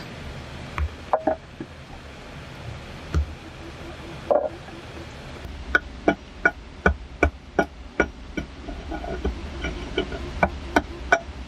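Hand tool chopping into wood: a few scattered knocks, then from about six seconds in a steady run of sharp, slightly ringing chops, about two to three a second.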